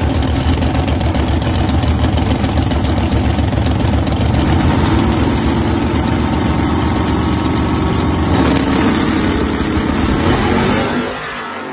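A Fox-body Mustang drag car's engine running loud and rough at the starting line. The sound drops off sharply just before the end.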